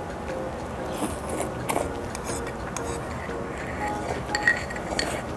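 Light background music with steady held notes, over a few sharp clinks of a metal spoon against a small black stew bowl as it is scraped and emptied.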